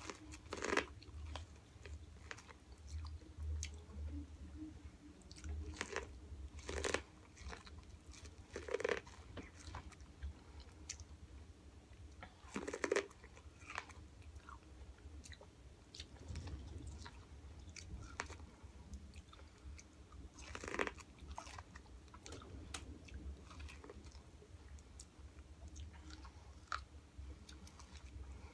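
Close-up biting and chewing of corn on the cob dressed Mexican street-corn style, the kernels crunching and popping off the cob. Louder bites come irregularly, about five times, between quieter chewing clicks.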